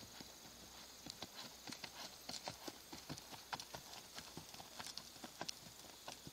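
Hoofbeats of a horse cantering under a rider on sand arena footing, a quick, uneven run of hoof strikes that is heaviest through the middle.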